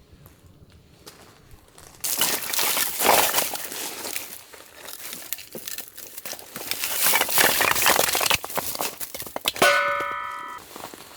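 Loud crackling, crinkling noise full of small clicks starts suddenly about two seconds in, and near the end a single metal ding rings for about a second.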